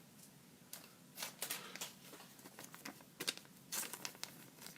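Trading cards and their packaging being handled at close range: faint, scattered rustles and light clicks, a few short ones at a time.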